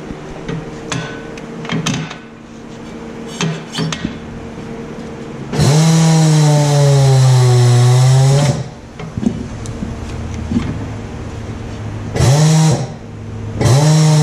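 Tire changer's turntable motor spinning the wheel while the mount head works the new tire's bead onto the steel rim. It runs three times, the longest for about three seconds, its hum dropping in pitch as it takes the load and rising again. Before that come light knocks of the tire being set on the rim.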